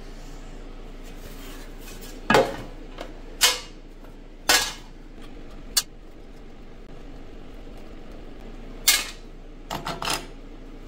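Sheet-metal air cleaner cover and filter on a Briggs & Stratton twin-cylinder mower engine knocking and clattering as they are handled and worked out of the housing. There are about eight sharp metallic clanks at irregular gaps, three of them in quick succession near the end.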